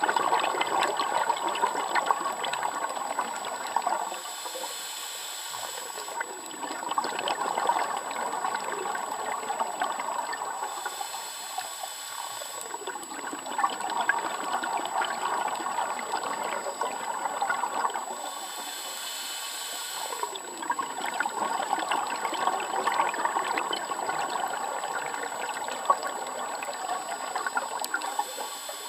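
Scuba diver's regulator breathing underwater: a two-second hissing inhale about every seven seconds, four times, each followed by several seconds of bubbling exhaled air.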